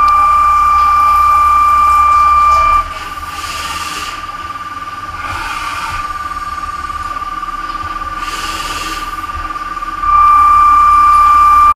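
Horizontal CNC machining center running inside its enclosure: a steady high-pitched whine over a low hum, louder at the start and again for the last couple of seconds. Three short bursts of hiss come through in between.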